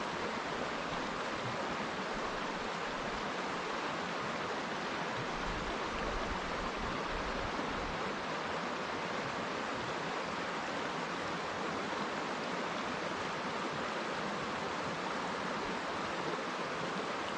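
River water flowing, a steady, even rushing with no breaks or changes.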